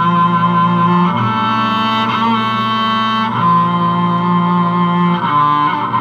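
Bowed cello music: long sustained notes, with the chord or pitch shifting about a second in, again past the midpoint, and again near the end.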